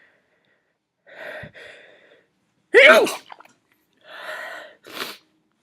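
A woman sneezing: two gasping in-breaths, then one loud sneeze about three seconds in with a falling voiced cry, followed by breaths. It is an allergy sneeze, which she blames on the flowers in the room.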